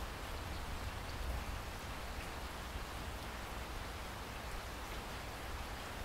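Heavy rain splashing steadily into standing water on a flat surface: an even hiss of drops with a low rumble underneath.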